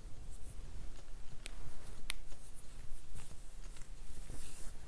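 Soft rustling and a few light clicks of a crochet hook pulling yarn through stitches, over a faint low hum.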